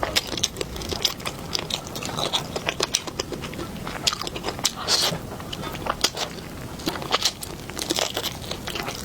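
Close-miked mukbang eating sounds: a person chewing spicy fish, with many quick, irregular mouth clicks and smacks.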